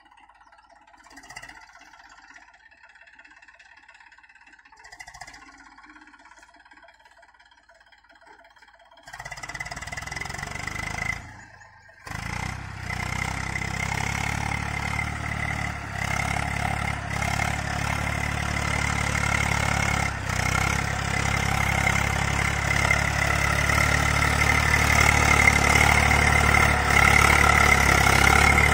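Eicher 380 40 HP diesel tractor engine working under load while pulling a cultivator through dry soil. It is faint for the first several seconds, then loud and steady from about nine seconds in, with a brief break near twelve seconds, growing slowly louder toward the end.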